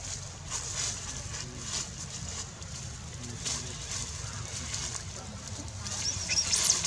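Dry leaf litter rustling and crackling as macaques shift and scuffle on the forest floor, over a steady low rumble. About six seconds in come a few short, high-pitched squeaks.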